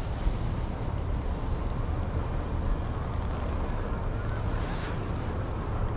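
Wind rumbling on the microphone: a steady low noise with no distinct events.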